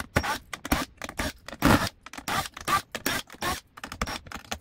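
Speaker parts being handled and moved: a run of irregular scrapes and knocks, short strokes with brief gaps between them.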